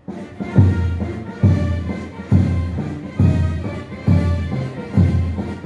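Military brass band striking up a march, a dobrado, with sustained brass chords over a heavy bass drum beat about once every second.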